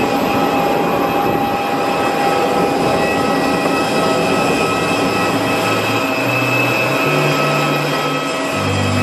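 Steady loud whine and rush of jet aircraft noise on an airport apron, with several high steady tones held throughout. Low bass notes of background music come in about halfway through.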